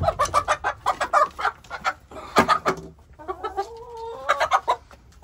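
Chickens clucking in short, quickly repeated notes, with a longer, drawn-out call about three to four seconds in.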